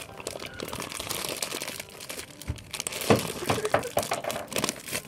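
Plastic mailer bag crinkling and crackling as hands open it and pull out what is inside, louder in the second half.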